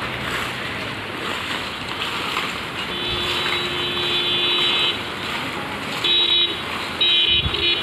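A vehicle horn honks: one long honk about three seconds in lasting about two seconds, then a short honk about six seconds in and a few quick honks near the end, over a steady rushing noise.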